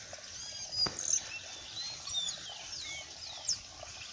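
Small birds chirping: many short high chirps, several sliding down in pitch, overlapping throughout, with a single sharp tap about a second in.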